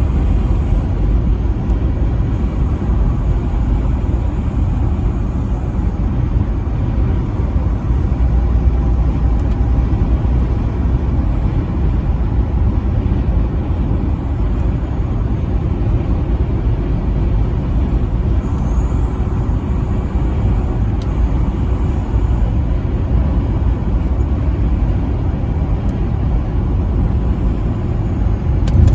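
Steady low rumble of a vehicle driving at highway speed, the road and engine noise holding level with no horn sounding.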